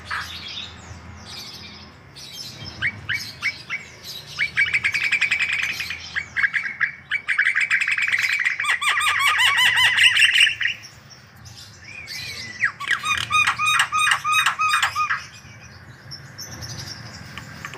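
Javan myna (jalak kebo) singing: runs of rapid, repeated chattering notes, in two long bouts with a pause of about two seconds between them.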